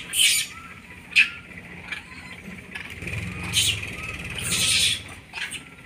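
Macaques trapped in a wire-mesh cage, shrieking and scrambling on the mesh: sharp high squeals and rattles come in separate bursts, the loudest about a second in. A low hum rises underneath in the middle.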